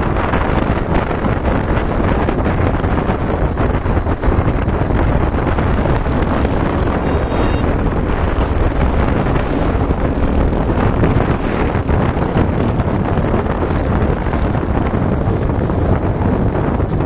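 Wind buffeting the microphone of a phone on a moving motorcycle: a loud, steady, low rush, with the motorcycle's running noise mixed in.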